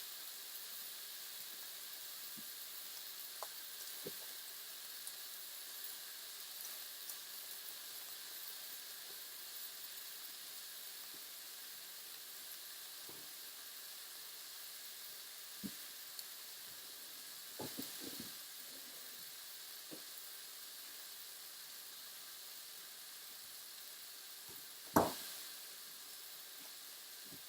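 Beef for tacos sizzling faintly and steadily in a frying pan, with a few light knocks and one louder clack near the end.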